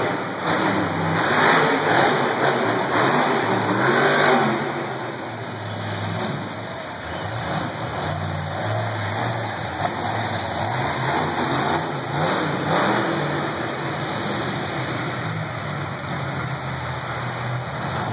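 Monster truck engines revving and running, their pitch rising and falling, with the loudest bursts of revving in the first few seconds and again about twelve seconds in.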